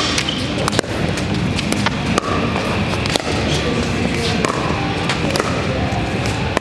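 Pickleball paddles striking the plastic ball in a doubles rally: a string of sharp pops about once a second, traded in a soft exchange at the net, over the steady background of a large gym hall.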